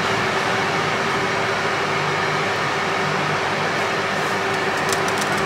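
Steady mechanical hum with a hiss, like a running fan, carrying one constant low tone.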